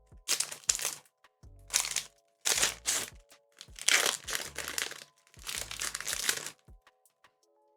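Foil wrapper of a Pokémon card booster pack crinkling in five loud bursts as it is handled and opened, over quiet background music.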